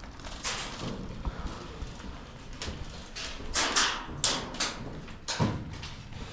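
A series of short thumps and crunches at uneven spacing, about eight in all, loudest and closest together in the middle.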